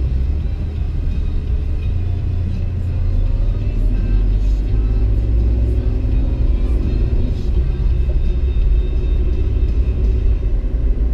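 Steady low rumble of a car's engine and tyres heard from inside the cabin while driving at road speed on asphalt.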